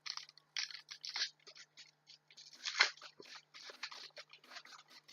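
Foil trading-card booster pack crinkling and rustling in the hands as it is torn open and the cards are pulled out: a string of short, irregular crackles, the loudest about three seconds in.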